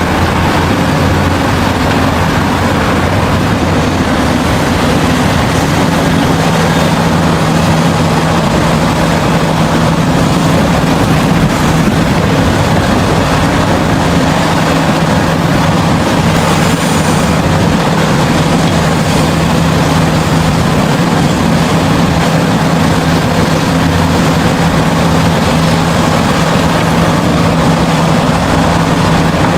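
Heavy diesel mining machinery running steadily under load. A deep engine hum shifts to a higher steady pitch about six seconds in.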